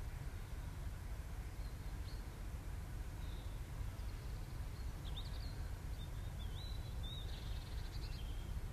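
Small birds chirping and warbling in short scattered calls, starting about two seconds in and busiest near the end, over a steady low rumble.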